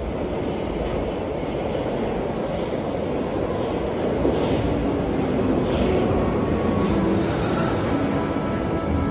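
London Underground Piccadilly line 1973 Stock train arriving at the platform, its running noise growing louder as it comes in. Steady tones join in after about four seconds, and a hiss about seven seconds in.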